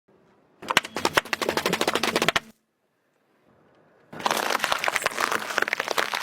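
Potatoes crackling and crunching in two bursts of rapid, sharp crackles, separated by a sudden silent gap.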